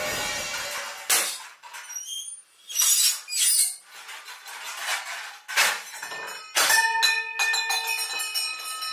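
Steel dishes and utensils clattering and clanging: a series of sharp metallic bangs, the last leaving a clear ringing tone that lingers for a couple of seconds.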